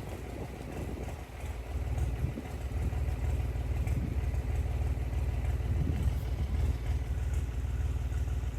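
Tractor engine running at a steady idle, a low rapid thrum that grows louder about two seconds in.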